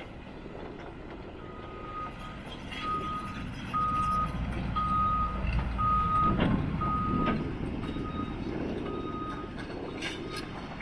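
CAT 316EL excavator's diesel engine running with its travel alarm beeping about once a second, starting about a second and a half in, as the machine moves on its tracks. A few sharp clanks near the end.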